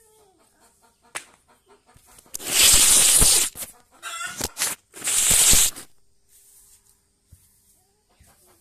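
Loud rustling and scraping of a hand handling a phone over its microphone while the phone is moved, in three bursts through the middle. Hens cluck softly before and after.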